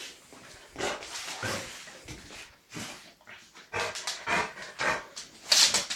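A Labrador making a string of short, breathy sounds, coming closer together in the second half, the loudest shortly before the end.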